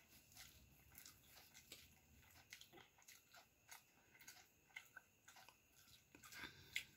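Quiet eating sounds: scattered faint soft clicks from fingers mixing pasta on a plate and from chewing, a little louder near the end.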